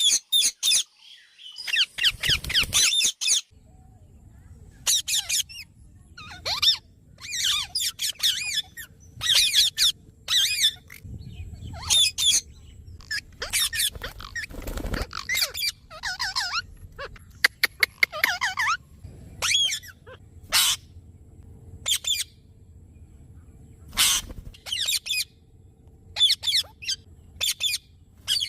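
Small pet parrots chattering: repeated runs of shrill, warbling chirps, each a second or so long, with short gaps between, over a faint low hum.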